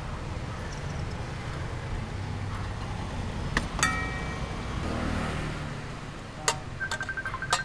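Metal tongs and a cleaver clinking against each other and a steel bowl over a wooden chopping block: two sharp ringing clinks past the middle, then a few more clicks and a quick run of light taps near the end. A steady low traffic rumble lies underneath.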